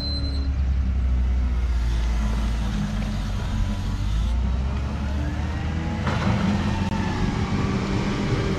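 JCB 435S wheel loader's diesel engine working under load, its pitch rising and falling as it pushes chopped maize up the silage clamp with a buckrake.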